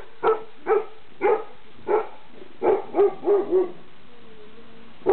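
Weimaraner puppy barking, about eight short high barks in quick succession that stop a little past halfway through.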